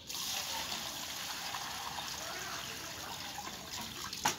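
Water running and splashing as cut cauliflower is rinsed by hand in a steel bucket, with one sharp knock just before the end.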